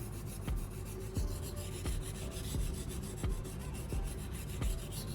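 Kitchen knife blade stroked back and forth on a wet 1000-grit whetstone coated in baking-soda slurry: a steady gritty rubbing in even strokes, about three every two seconds. This is the fine-grit refining stage that polishes out the coarser stone's scratches.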